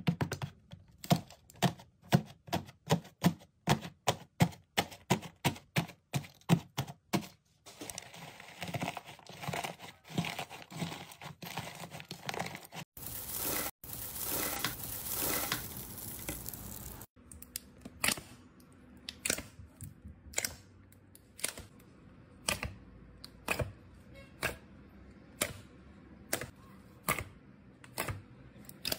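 Hands squishing and pressing slime, making wet pops and clicks, quick at about three a second at first. In the middle a crinkling rustle comes as pink metal foil is pressed into clear slime with a metal press. Slower, regular pops follow, about one and a half a second.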